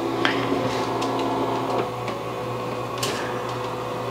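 HTVRONT Auto Heat Press's motor raising the heat platen at the end of a press cycle: a steady electric hum with small clicks that stops suddenly about two seconds in. A short scrape follows near the end as the lower plate is slid out.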